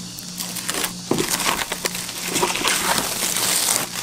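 Thin clear protective plastic film being peeled off a MaxxFan roof vent cover, crinkling and crackling irregularly as it is pulled away.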